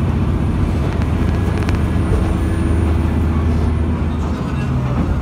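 Matsuura Railway MR-600 diesel railcar under way, heard from inside the car: a steady diesel engine drone over rolling rail noise, with a brief click from the wheels about halfway through and a change in the engine note near the end.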